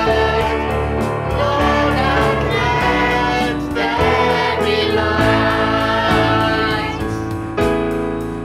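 Christian worship song: a group of voices singing together over instrumental backing.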